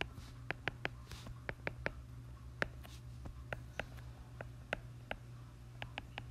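Stylus tip tapping and clicking on a tablet's glass screen during handwriting: about fifteen sharp, irregular ticks, over a steady low hum.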